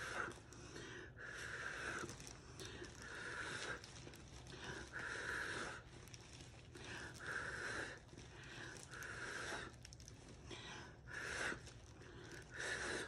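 A person blowing short puffs of breath through pursed lips onto wet poured acrylic paint, about one airy blow every second or two, spreading the paint outward for a bloom pattern.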